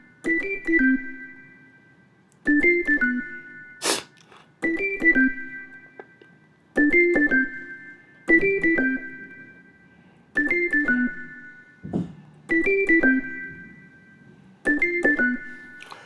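Yamaha Montage M synthesizer playing an organ patch: a short, plucky figure of a few quick notes, high and low together, repeated eight times about every two seconds. A sharp click sounds about four seconds in.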